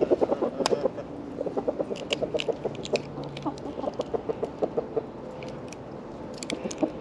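Chickens clucking in quick runs of short notes. A few sharp clicks come through as an egg is knocked against a tree trunk and broken open by hand; the loudest is about half a second in.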